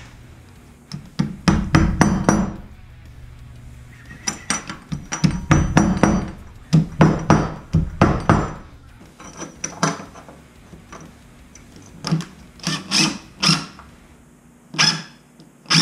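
Claw hammer tapping wall anchors into holes drilled through ceramic wall tile: repeated sharp strikes in runs of several. In the last few seconds a cordless impact driver fastens the steel urinal hanger bracket in a few short bursts.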